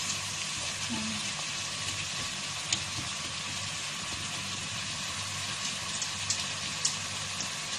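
Chicken pieces with onion and garlic sizzling in a metal pot as a spatula stirs them, with a few sharp clicks of the spatula against the pot.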